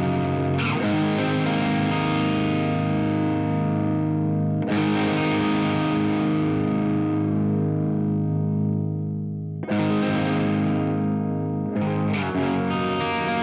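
Electric guitar through an MXR Duke of Tone overdrive pedal, playing overdriven chords. Each chord is struck and left to ring, four times, and the last few seconds have quicker picked notes.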